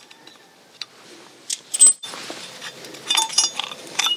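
Light metallic clicks and clinks of bolts and the water pump guard plate being handled as the plate is unbolted and pulled off a motorcycle engine: a few scattered clicks at first, then a quick cluster of small clinks near the end.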